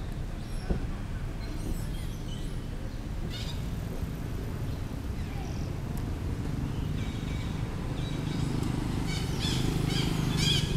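Short, high chirping animal calls, a few at first, then repeating quickly several times a second in the last couple of seconds, over a steady low outdoor rumble.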